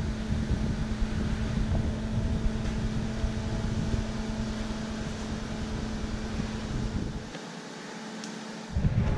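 A steady machine hum over a low rumble, the rumble dropping out for a moment about seven seconds in.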